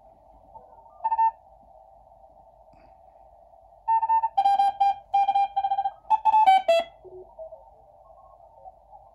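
Ham radio receiver audio through a narrow CW audio filter: a thin band of hiss with Morse code tones keyed on and off, one short burst about a second in, then a run of CW from about four to seven seconds whose pitch shifts as the dial is tuned across the signals.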